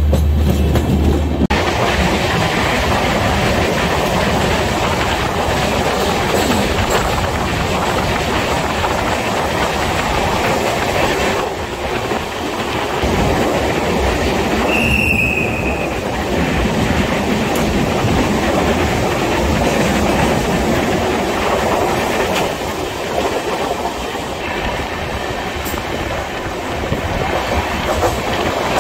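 Passenger train running along the rails, its wheels clattering over the track, heard from beside the coach as it passes through rock tunnels. A brief high squeal comes about halfway through.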